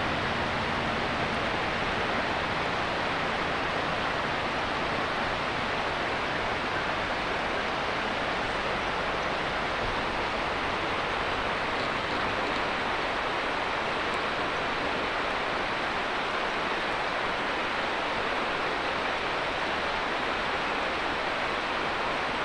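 Steady, even rush of a mountain river flowing through the valley. In the first second or so the low drone of the departing train's diesel engine fades away under it.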